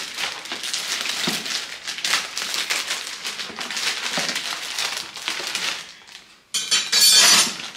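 Parcel packaging crinkling and crackling as it is torn and pulled open by hand after being cut with a knife, in irregular rustles, with a short louder rasping tear near the end.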